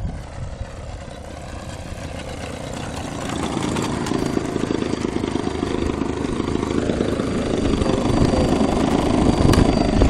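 Model airplane's O.S. Max .75 two-stroke glow engine idling as the plane taxis in, growing louder about three seconds in as it comes close.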